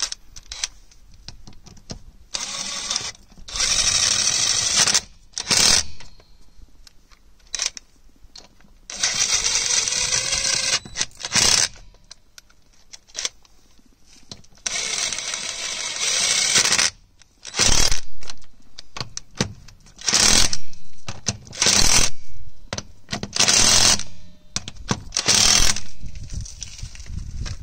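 Cordless impact wrench running in repeated bursts of one to two seconds with short pauses between, spinning on and hammering tight the nuts that hold a wheel spacer to the hub.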